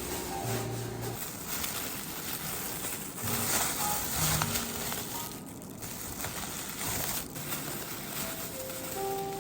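Background music of short held notes over a steady hiss of noise.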